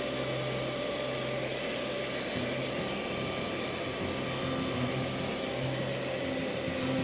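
Bee vacuum running steadily: a motor hum under a rush of air.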